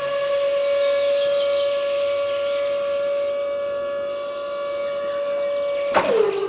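Small DC motor of a homemade mini water pump running with a steady high whine. About six seconds in, the pitch drops sharply and settles lower.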